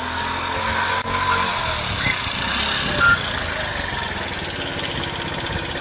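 An engine running steadily, heard through a doorbell camera's microphone, with a brief louder sound about three seconds in.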